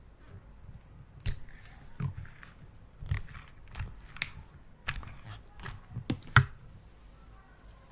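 Slime being worked by hand, giving irregular sticky pops and crackles, the loudest about six seconds in.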